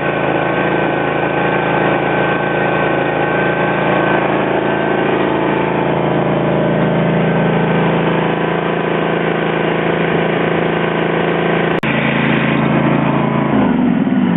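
Simplicity riding mower's two-cylinder 12.5 horsepower engine running steadily just after a cold start. There is a single sharp click about twelve seconds in, and the engine slows near the end.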